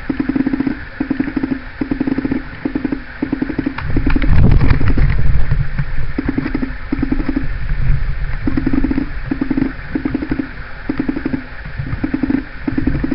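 Paintball markers firing in rapid bursts, each about half a second long, repeating with short gaps. About four seconds in there is a louder rumble of handling noise for a second or so.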